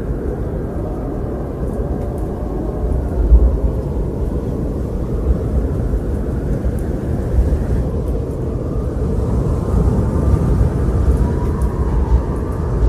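Low, rumbling wind blowing steadily, with a faint whistling howl coming in past the middle.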